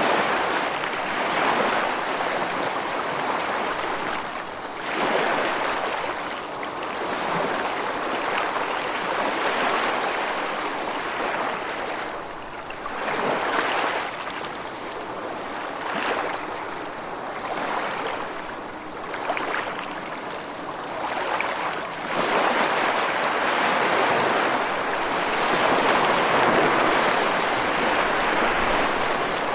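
Rushing water, a continuous wash that swells and eases every few seconds.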